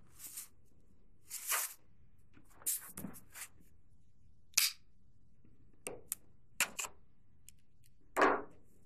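Cardboard retail box being handled and turned over on a tabletop: scattered knocks, scrapes and sharp clicks, with a sharper click about halfway through and a brief rustling scrape near the end.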